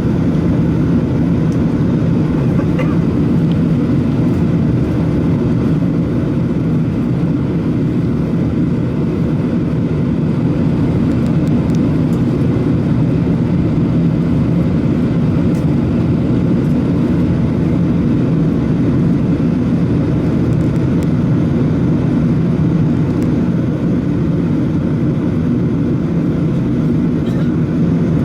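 Airbus A380 cabin noise heard from a rear window seat: the Rolls-Royce Trent 900 engines and the rush of air past the fuselage make a loud, steady drone that stays level throughout.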